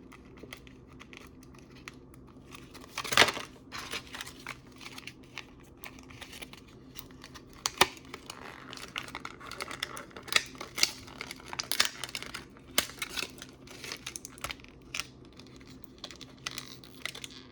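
Plastic toy packaging crinkling and crackling as figures are pried out of their tray, with irregular sharp clicks and snaps; a louder snap comes about three seconds in and another near eight seconds.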